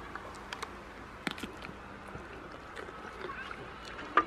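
Goat biting and crunching a cucumber: a few sharp crisp bites, the loudest near the end.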